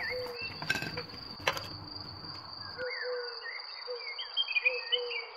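Steady high cricket trill with birds chirping over it. In the first half there are two sharp clicks and a low background noise that cuts off abruptly about three seconds in.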